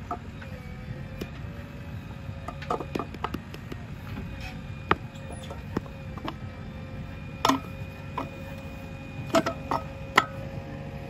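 Irregular knocks and slaps of hand brick-molding: wet clay is thrown into a wooden brick mold and the bricks are turned out onto sandy ground. The loudest knocks come about five, seven and a half, nine and a half and ten seconds in. A steady low machine hum runs underneath.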